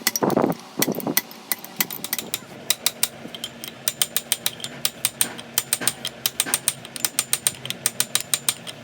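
Rapid metal-on-metal strikes, several a second and slightly uneven, like a hammer tapping on a steel part, with one short loud burst of noise in the first second.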